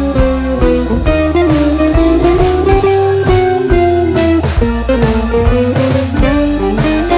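Background music: a blues-rock instrumental with a lead guitar playing sliding, held notes over a steady drum beat and bass.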